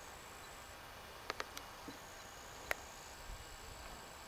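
Quiet outdoor ambience with faint, steady, high-pitched insect calls. A few light, sharp clicks sound about a second and a half in, and a stronger single click comes near the three-quarter mark.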